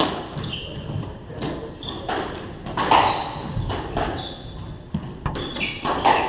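Squash players' shoes squeaking briefly on a wooden court floor, with footsteps and several sharp knocks, the loudest about three seconds in.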